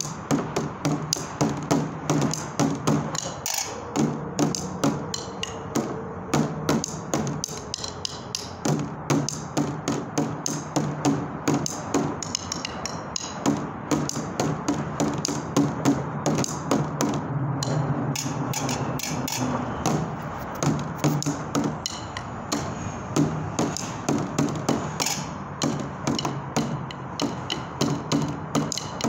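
Fast street drumming with a wooden stick on a plastic bucket and other found objects: many quick, sharp taps in a running rhythm over a low ringing hum.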